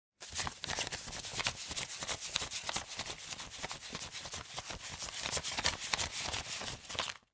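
Paper banknotes being counted: a fast, uneven run of crisp paper flicks and rustles that starts and stops abruptly.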